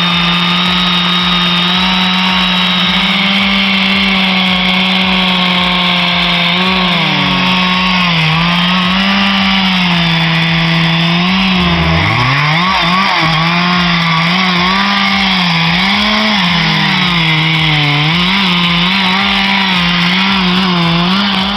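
Large chainsaw with a 6.4 HP engine and a 36-inch bar cutting into a hardwood trunk at full throttle. The engine runs steady at first, then its pitch repeatedly dips and recovers as the chain bites into the wood, with one deep bog-down about halfway through.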